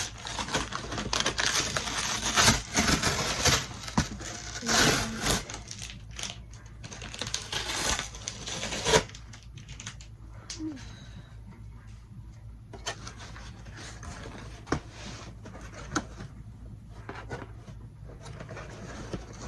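Packaging being opened by hand: crinkling, rustling and tearing of wrapping for about nine seconds, then quieter handling with scattered light knocks and clicks.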